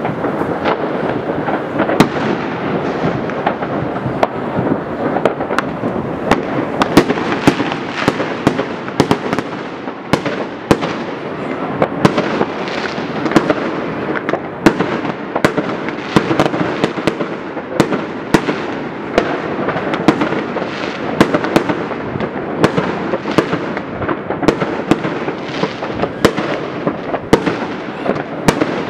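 Many fireworks going off at once, distant bangs merging into a continuous rumble with frequent sharp cracks several times a second.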